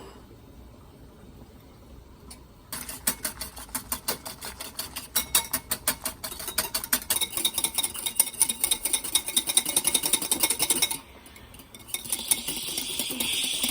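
A hand whisk beating rapidly in a bowl, its wires clicking against the side several times a second. It starts about three seconds in and stops near the end, followed by a brief softer scraping.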